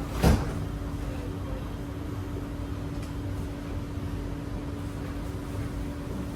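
Metro train doors thudding shut once, a third of a second in, followed by the steady hum of the C151B train car with a constant low tone underneath.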